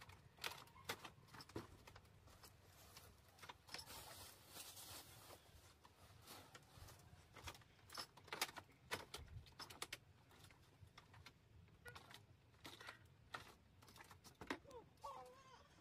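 Faint scattered knocks and clicks of household things being handled and set down on a wooden plank floor, with a stretch of rustling about four seconds in.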